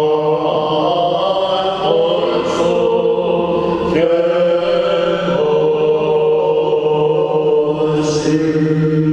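Byzantine chant: a male cantor sings long, ornamented held notes, the melody shifting pitch about two, four and five seconds in, over a steady low drone note (the ison) held beneath it.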